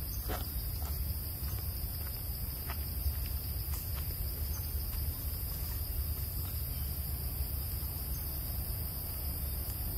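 Insects droning steadily at a high pitch in forest canopy, over a steady low rumble, with a few faint short sounds in the first few seconds.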